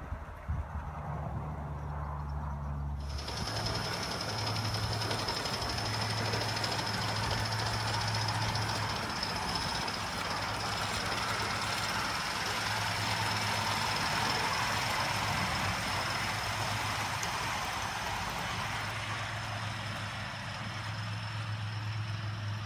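Live steam model locomotive hissing steam. A steady hiss with a thin high tone in it sets in suddenly about three seconds in, over a low rumble.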